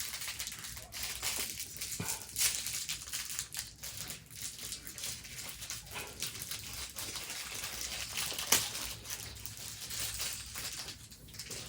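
Plastic bags and wrappers crinkling and rustling as small toys are handled, with scattered sharp clicks and one louder crackle about eight and a half seconds in.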